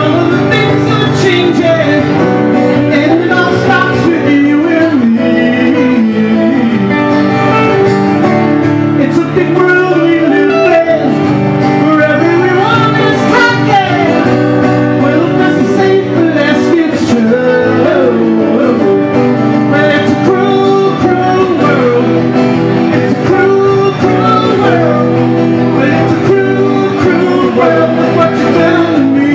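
Live music: a man singing while strumming an acoustic guitar, with an electric guitar playing along.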